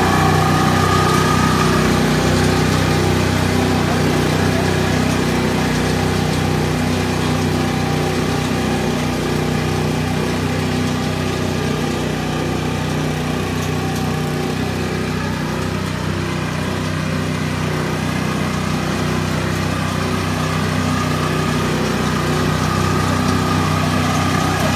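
Small engine of a Hasatsan H 130 self-propelled hazelnut harvester running at a steady speed, an even drone that fades a little midway and grows louder again near the end.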